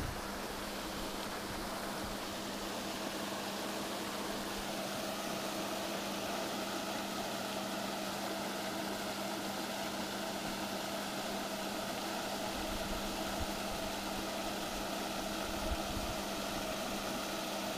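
A motor running steadily, a constant mechanical hum with a low tone and higher overtones that hold unchanged throughout.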